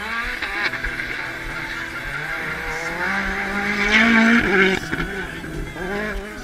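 Rally car running flat out through a hairpin on a special stage, its engine revving up and down through gear changes and loudest about four seconds in as it passes closest.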